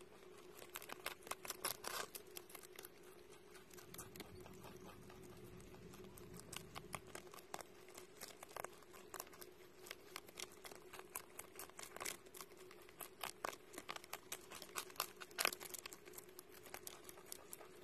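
A rabbit chewing lettuce up close: quick, irregular crisp crunches and small tearing sounds as the leaves are bitten off and chewed.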